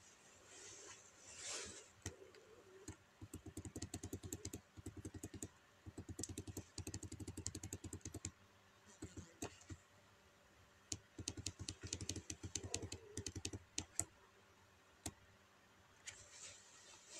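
Faint rapid clicking in several runs of a few seconds each, like typing on a phone's touchscreen keyboard with key-click sounds on. A soft rustle comes near the start.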